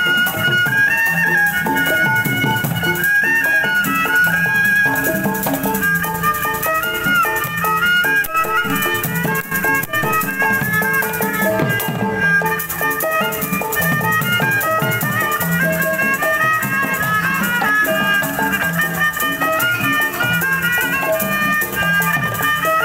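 Betawi ondel-ondel street music: an instrumental melody with a steady rhythmic beat and rattle-like percussion, playing without a break.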